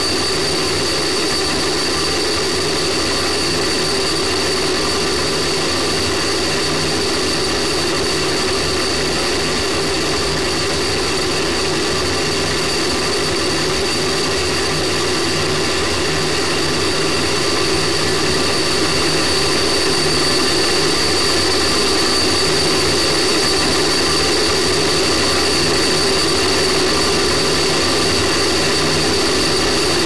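Space Shuttle solid rocket booster burning during ascent, heard through a camera mounted on the booster itself: a steady, dense rushing noise with a thin high whine running through it, growing slightly louder a little over halfway through.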